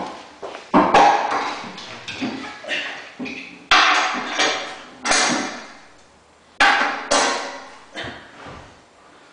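A series of sharp knocks and clanks, irregularly spaced, as a granite countertop slab is lowered and set down onto base cabinets with bar clamps on its edge. No cracking of the stone: the slab goes down without breaking.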